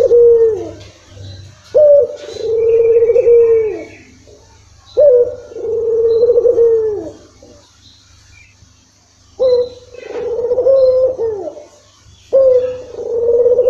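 Ringneck (Barbary) dove cooing, a long low coo repeated every three to four seconds. Each coo opens with a sharp higher note, holds steady and falls away at the end.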